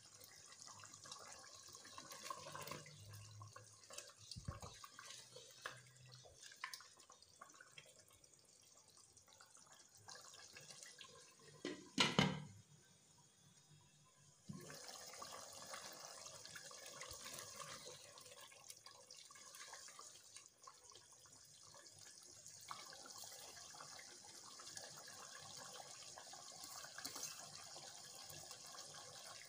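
Curry gravy simmering in a pan, a faint steady bubbling and crackle. About twelve seconds in comes one sharp clatter as a glass lid goes onto the pan.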